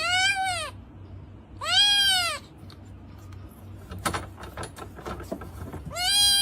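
Cat meowing three times: drawn-out meows that rise and fall in pitch, with a few light clicks between the second and third.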